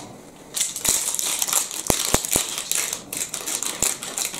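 Pastry ingredients being worked together in a stainless steel mixing bowl: a scratchy rustle with several sharp metal clicks against the bowl.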